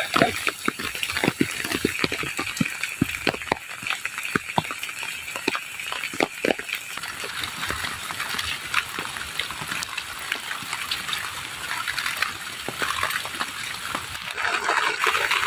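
Heavy rain pouring in a steady hiss, with many sharp separate drop impacts ticking through the first half.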